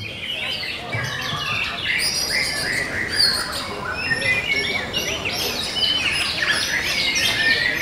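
White-rumped shama (murai batu) singing: a dense, unbroken stream of quick whistles, trills and sweeping phrases.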